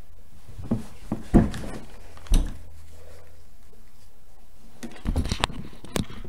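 Handling noise from a camera being moved and raised: a handful of dull knocks and rubs, the loudest a little over a second in, with a cluster of them near the end, over a faint low hum.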